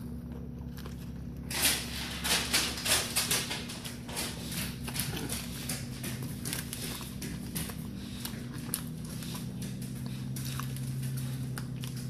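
Wet, smacking chewing and biting of a man eating a large burger fast, a quick irregular run of mouth clicks that is loudest from about a second and a half in and then eases off. A steady low hum runs underneath.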